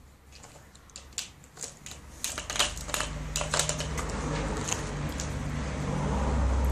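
Plastic treat ball clicking and rattling as a Siberian husky noses and paws it along concrete. The clicks are sparse at first and come thick and fast from about two seconds in. A low steady hum builds underneath in the second half.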